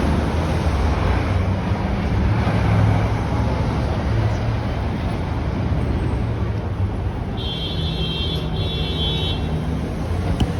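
Steady city street traffic with a low rumble, heard from a moving bicycle. A high-pitched squeal lasts about two seconds, starting about three-quarters of the way through and broken once.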